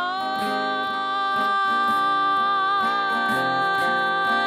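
A woman singing one long held note over a strummed acoustic guitar, in a folk song.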